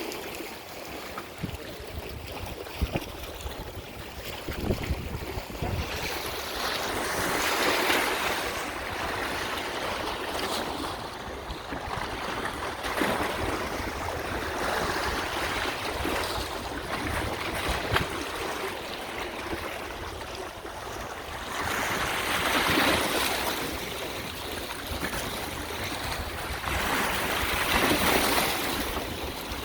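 Lake Michigan waves washing onto the beach, rising in three surges, with wind rumbling on the microphone.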